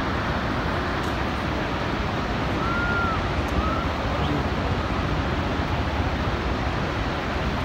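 Steady, even rush of the Iguaçu Falls' heavy water pouring over the cliffs. Two short, high, arching whistled notes come about three seconds in.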